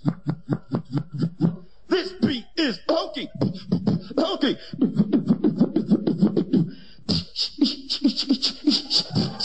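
Vocal beatboxing: fast mouth-made kick and snare clicks mixed with short pitched vocal sounds. About seven seconds in it switches to an even beat of hissed hi-hat sounds over low bass notes.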